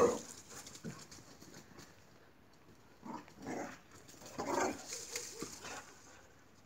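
Two boxer dogs play-fighting and vocalizing. There is one loud bark right at the start, then a few short growls about three to five seconds in.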